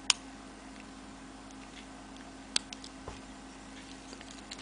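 A few sharp clicks and small ticks as rubber loom bands are lifted from peg to peg with a hook on a small plastic Rainbow Loom Monster Tail board: the loudest click just after the start, another about two and a half seconds in. A faint steady hum runs underneath.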